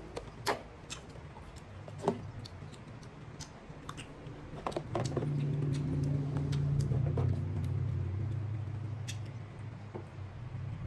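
Light clicks and taps of plastic food containers and lids being handled and closed, over a low steady hum that grows louder about halfway through.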